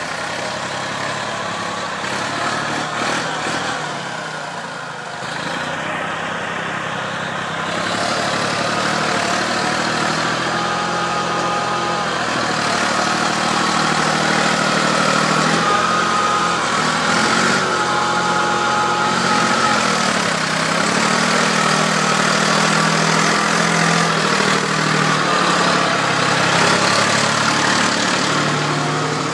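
Massey Ferguson tractor's diesel engine running continuously. It gets louder about eight seconds in, and its engine speed rises and falls a few times in the second half as the tractor works along the track.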